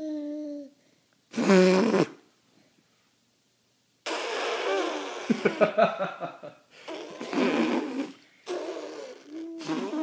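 A person making silly noises with voice and mouth: a short hum near the start, a loud brief squawk about a second and a half in, then from about four seconds a run of rough, raspy buzzing and snorting mouth noises in several bursts.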